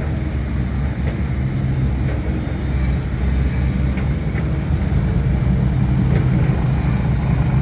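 Dump truck's diesel engine running steadily under way, a low rumble with a few faint knocks from the truck jolting on the rough road.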